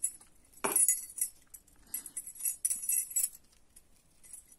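Small metal keyring jingling and clinking in the hands in a few short, irregular spells.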